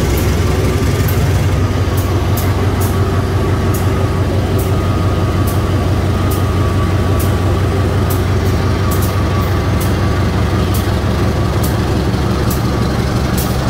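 Diesel engine of a CC 201 diesel-electric locomotive (GE U18C) running steadily close by, a loud even low drone.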